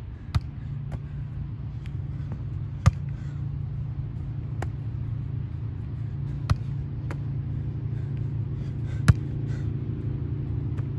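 A volleyball being struck back and forth in a passing and digging drill: sharp single smacks of hands and forearms on the ball every second or few seconds, over a steady low rumble.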